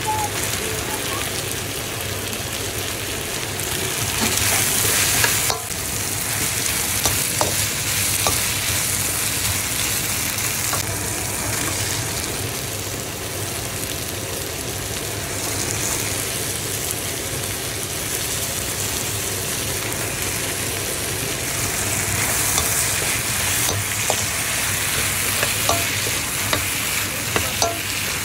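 Sliced onions, ginger and tomatoes sizzling in hot oil in a wok, stirred with a slotted metal spatula that scrapes and clicks against the pan now and then, more often near the end.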